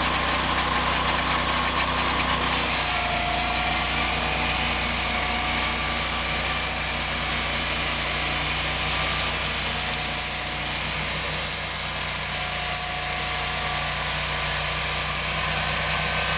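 Sawmill engine running steadily, with a shift in its tone about three seconds in.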